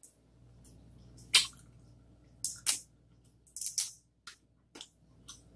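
Boiled crawfish being eaten by hand: sucking the juice from the head and cracking and peeling the shell, heard as a string of short wet sucks and shell cracks about a second apart.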